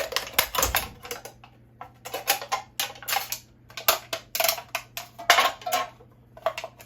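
Thin aluminum from a drink can being cut and bent by hand. The sheet metal crackles and clicks in irregular bursts with short pauses between them.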